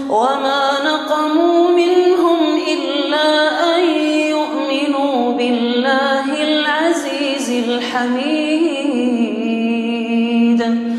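A man reciting the Quran in a slow, melodic murattal chant, one continuous phrase with long held notes that bend and ornament in pitch.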